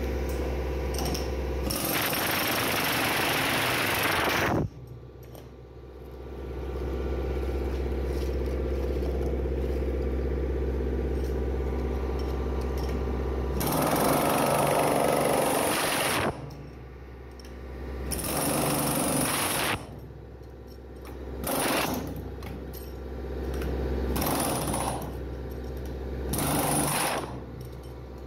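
Pneumatic chipping hammer breaking hardened concrete out of a transit mixer drum, working in bursts: a long run of a few seconds near the start, another in the middle, then several shorter bursts toward the end. It runs inside the steel drum itself.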